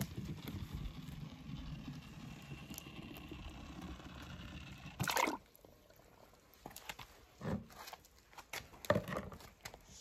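Toy monster truck's wheels rolling over the track with a low rumble, then a splash about five seconds in as it drops into a tub of water, followed by a few smaller splashes.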